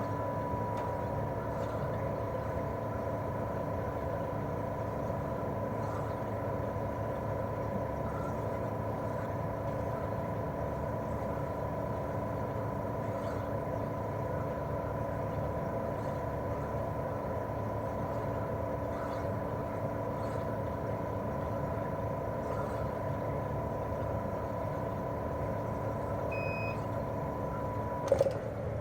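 Daikin R28RMV mini-split outdoor unit running in cooling, its fan and twin-cylinder swing compressor giving a steady hum with a thin whine on top. Near the end the whine cuts off with a sharp knock.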